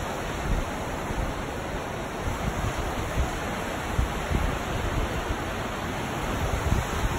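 Steady rush of river rapids below, with wind buffeting the microphone.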